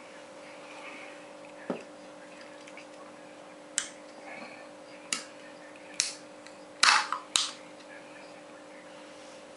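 Aluminium ring-pull drinks can being opened by hand: a soft knock as it is picked up, three sharp clicks at the tab, then a louder crack with a brief hiss about seven seconds in as the seal breaks, and one last click.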